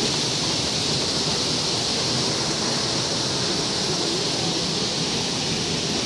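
Waterfall rushing steadily: an even, constant hiss of falling water.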